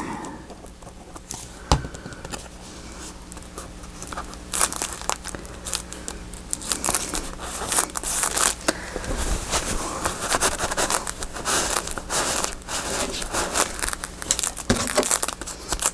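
Paper being handled and pressed by hand, with rustling and crinkling crackles that grow busier after about four seconds, and one sharper tap just under two seconds in.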